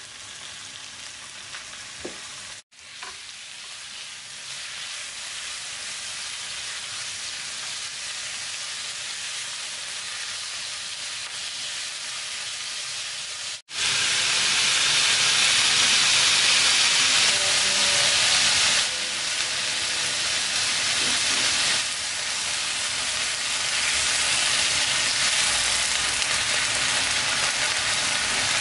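Sliced meat and onions sizzling in hot oil in a nonstick frying pan, turned with chopsticks near the end. The sizzle breaks off for a instant twice and is clearly louder after the second break, about halfway through.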